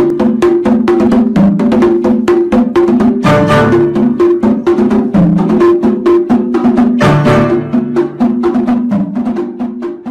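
Background music: a fast, even clicking beat like a wood block, about seven strokes a second, over sustained melody notes; it fades near the end.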